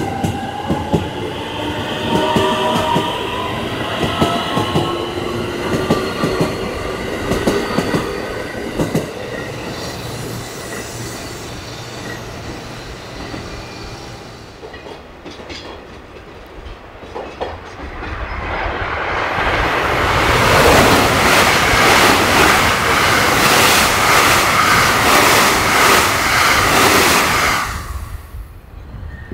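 An electric commuter train pulls away, its traction motors giving a rising whine of several tones while the wheels click over rail joints. After a quieter stretch, a train passes through at speed in a loud rush of wheel-on-rail noise with rapid clicking, which drops away about a second before the end.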